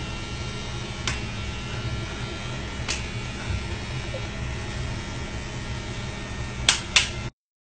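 Small electric pet clipper running with a steady low buzz, with a few faint clicks and two sharper clicks close together near the end.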